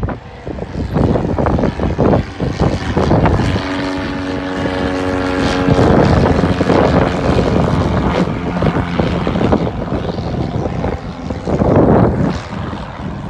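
Piston engine and propeller of a light tow plane passing overhead while towing a glider. Its drone drops in pitch about halfway through as it goes by.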